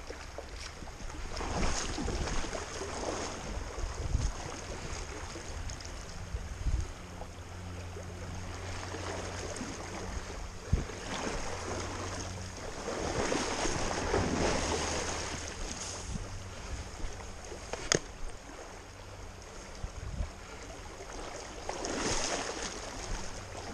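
Shallow creek water running over stones, with wind buffeting the microphone; the rush swells louder a few times, and there is one sharp click near the end.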